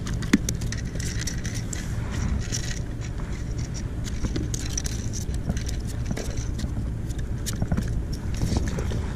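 Scattered light clicks and taps as a hooked fish on a fishing line is handled, over a steady low rumble.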